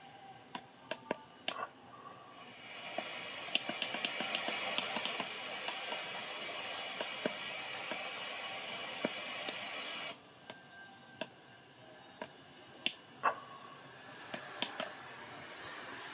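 Music playing from a travel trailer's stereo speakers, sounding somewhat distant. It drops out for a few seconds about ten seconds in, then comes back. Scattered sharp clicks run through it.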